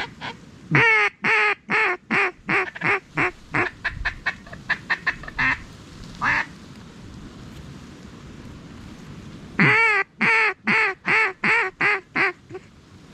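A duck call blown in a mallard hen's quacking cadence to draw in circling ducks. There are two long runs of quacks, each opening with a drawn-out note and trailing off, with a single quack between them.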